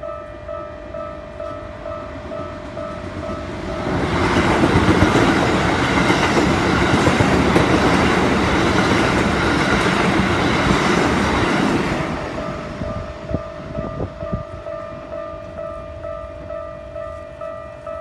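Electronic level-crossing bell ringing about twice a second while a red Keikyu electric train passes. The train's noise swells about 4 s in, covers the bell, and fades from about 12 s in with a few wheel clacks over rail joints, after which the bell keeps ringing.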